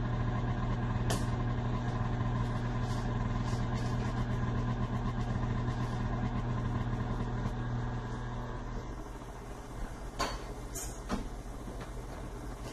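KitchenAid stand mixer driving its pasta roller attachment: a steady motor hum as a folded sheet of pasta dough is fed through the rollers. The hum fades about two-thirds of the way through, and a few short knocks follow near the end.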